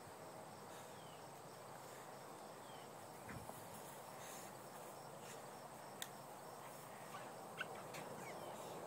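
Quiet outdoor yard ambience: a faint steady hiss with a few faint short chirps and a couple of soft ticks.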